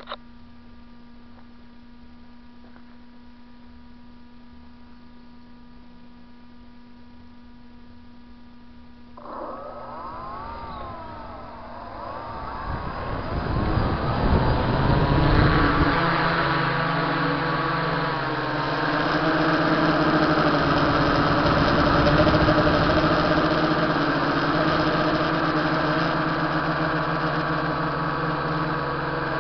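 Electric motors and propellers of an RC tricopter spinning up about nine seconds in, their pitch wavering with the throttle, then growing louder into a steady multi-tone whine from about thirteen seconds on. Before that there is only a faint steady electronic hum.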